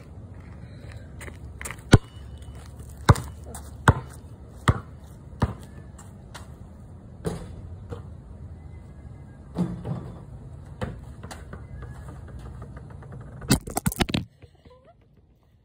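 Basketball bouncing on concrete: a string of sharp bounces about a second apart, each fainter than the last, then a few scattered thuds. Near the end, a burst of loud knocks and rubbing as the phone is handled, after which the steady background rumble cuts off.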